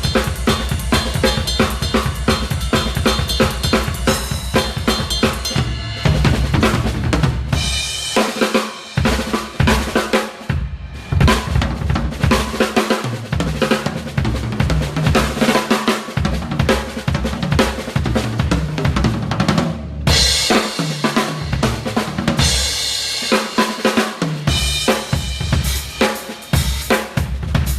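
Crush drum kit played hard in a busy gospel-style groove with fills: kick drum, snare with rimshots and toms, and crash cymbals ringing out in a few louder passages.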